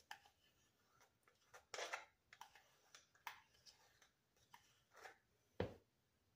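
Spoon scraping applesauce out of a small cup into a bowl of flour: faint scrapes and clicks, with a sharper knock about five and a half seconds in.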